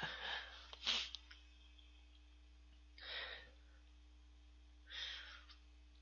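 A man's audible breaths into a close microphone: two short ones at the start, then single breaths about three and about five seconds in, over a faint steady electrical hum.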